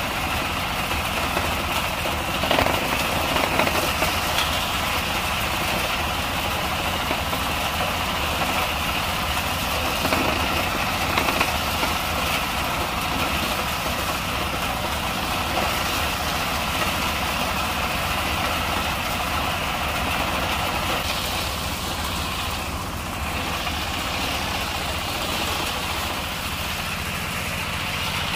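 Engine-driven soybean thresher running steadily under load as dried soybean plants are fed into its threshing drum, with a few brief louder surges in the first half.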